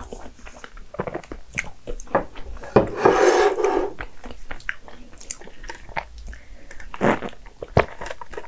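Close-miked eating sounds: chewing soft crepe cake and cream, with wet mouth clicks and smacks and a louder swallow or slurp about three seconds in. Near the end comes a sip of coffee.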